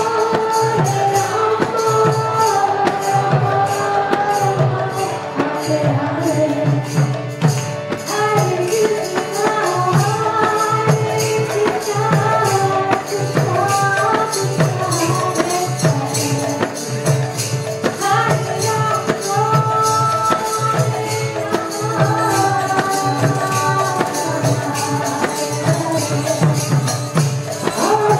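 Kirtan: a sung devotional chant with hand cymbals jingling on a steady beat and drum strokes underneath.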